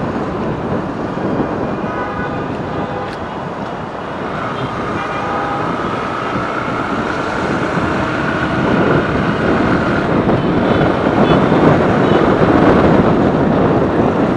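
Riding a Bajaj Pulsar NS160, a single-cylinder four-stroke motorcycle, in traffic: engine running under way, mixed with wind and road noise, getting louder near the end. A thin steady tone joins in for several seconds in the middle.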